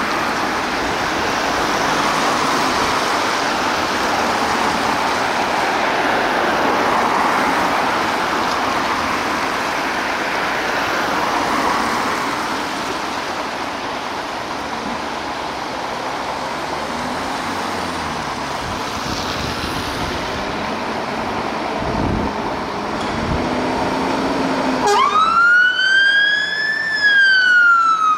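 Steady hiss of traffic on a wet road, with a truck engine revving lightly as the Scania fire engine pulls out. About 25 seconds in, its siren starts up with one long wail, rising and then falling.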